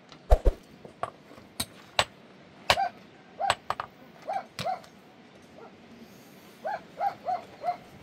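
Hammer striking stones on a rocky dirt floor: about eight sharp knocks, irregularly spaced, over the first five seconds. Short, high cries come in quick runs of three or four, once in the middle and again near the end.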